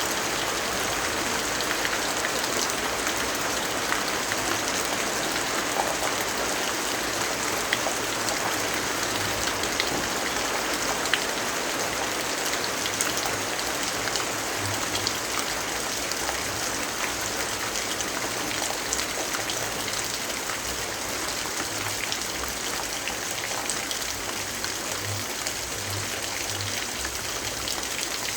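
Steady rainfall: a dense, even hiss with scattered sharp ticks of individual drops.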